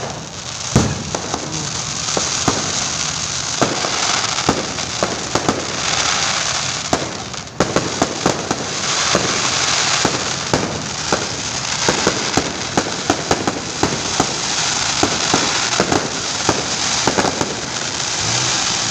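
Fireworks going off in a rapid barrage of sharp bangs and pops over a steady crackling hiss. They briefly drop off about seven and a half seconds in, then carry on.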